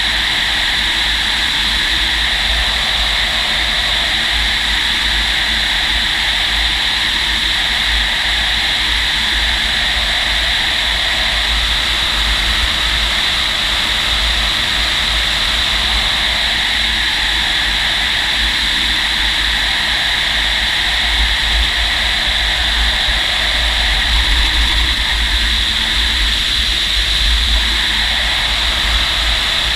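Steady rush of airflow inside a Fox glider's cockpit while it is towed behind a tow plane: a constant hiss over a low buffeting rumble that swells slightly in the last third.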